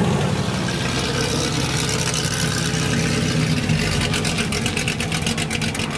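A car engine idling steadily. From about four seconds in, a rapid even ticking runs alongside it, about ten clicks a second.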